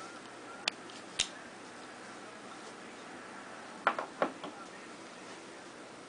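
Sharp clicks of a Spyderco folding knife being handled: two clicks about half a second apart, then a quick cluster of four clicks and clacks about four seconds in, as the blade is closed and knives are set down on a wooden table.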